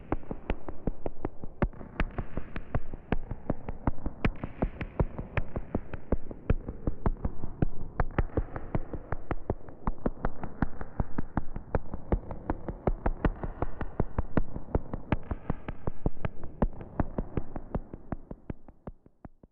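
Electronic synthesiser music: a rapid pattern of sharp clicks and ticks, about five a second, over a soft synth pad, fading out near the end.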